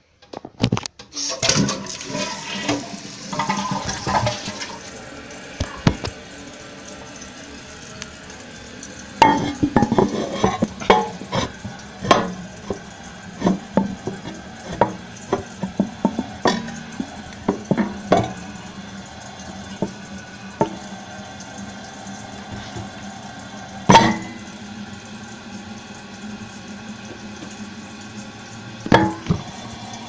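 Kohler Wellworth toilet flushing with the tank lid off: a loud rush of water about a second in that lasts a few seconds, then the tank refilling with a steady hiss, broken by many sharp clicks and knocks.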